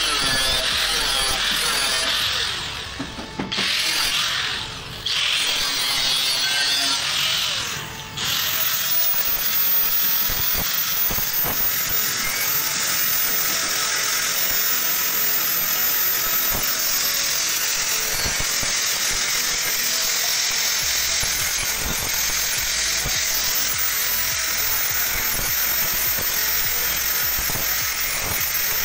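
Angle grinder cutting round holes through the sheet-steel side of an electrical panel enclosure, a steady high grinding with a few brief let-offs in the first eight seconds.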